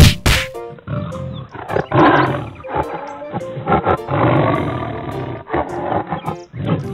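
A lion roaring, a dubbed-in sound effect, in long stretches over light background music, after two sharp clicks at the very start.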